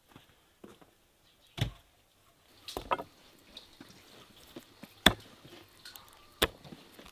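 Cooking utensils knocking and clattering: four sharp knocks spaced a second or more apart, the loudest about five seconds in, with faint light clatter between.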